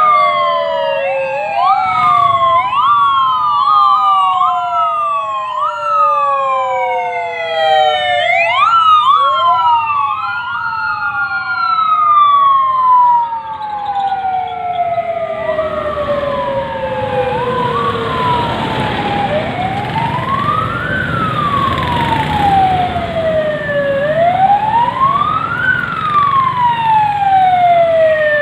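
Sirens of an approaching police convoy wailing together, several at once, their pitches overlapping as each rises quickly and falls slowly. From about halfway through, engine and tyre noise grows as the vehicles near, and a single siren with slower rises and falls takes over.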